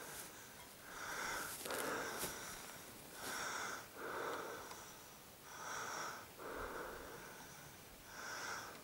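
Heavy breathing close to the microphone from a hiker climbing a steep slope: paired in-and-out breaths about every two and a half seconds, four times.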